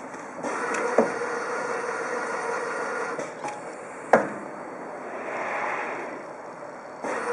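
Six-lane indexing filling machine running, with a steady mechanical hum and hiss. Sharp clacks sound about a second in and again about four seconds in, the second being the loudest.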